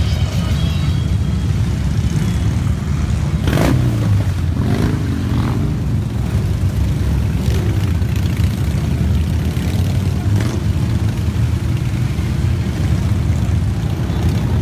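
Many large touring motorcycles riding past in a column, a steady low engine rumble with a few brief revs and sharp noises in the first half.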